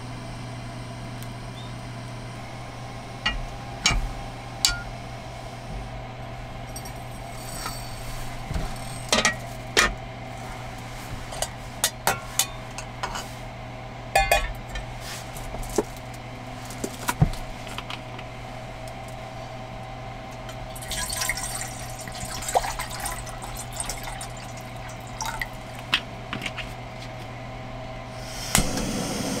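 Metal clinks and taps of a stainless camping pot, its lid and a spoon and bowl being handled on a wooden table, over a steady low hum. Near the end a gas-canister camping stove burner comes on with a loud steady hiss.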